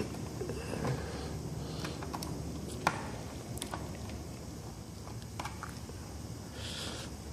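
Faint scattered clicks and scrapes of a small hand tool working a damaged screw out of a Narco navigation radio's case, with a sharper click about three seconds in, over a steady background hiss.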